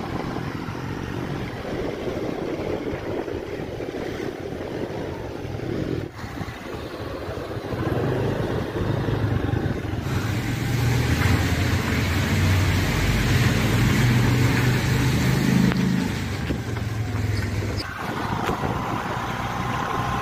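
Honda scooter's engine and tyre noise from the rider's seat while riding. A low engine hum grows stronger and steadier from about eight seconds in, and the sound changes abruptly a few times.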